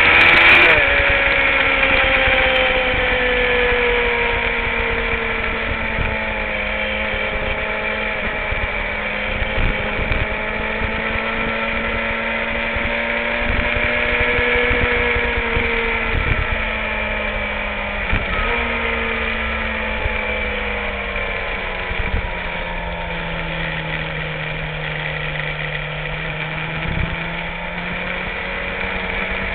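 Sport motorcycle engine running as the bike is ridden, heard from a camera on its tail. The engine pitch jumps up sharply about half a second in, then sinks slowly and holds, dropping lower about two-thirds of the way through, with a few short knocks along the way.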